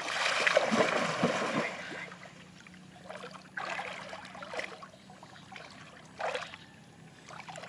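Water splashing and sloshing, loudest for the first two seconds, with shorter splashes about four and six seconds in.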